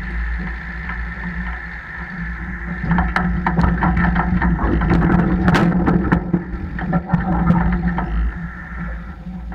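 Tractor and trailed field sprayer running steadily across a field while applying liquid fertilizer. From about three seconds in until near the end, the sprayer rattles and knocks repeatedly over rough ground.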